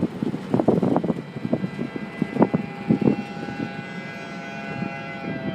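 A fire station's outdoor warning siren comes in about two seconds in as a distant steady wail that slowly falls in pitch. Wind gusts buffet the microphone throughout.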